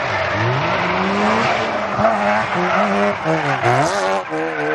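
Mazda RX-7 FD drift car's engine revving up and down repeatedly as it slides through a corner, with its tyres squealing and skidding.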